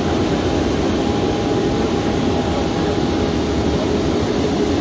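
Jet aircraft running steadily: a continuous low roar with a thin high whine over it.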